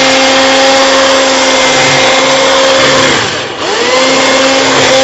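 Electric hand mixer running at speed, its beaters whipping cream in a bowl, with a steady motor whine. About three and a half seconds in, the whine dips sharply in pitch and then climbs back up to speed.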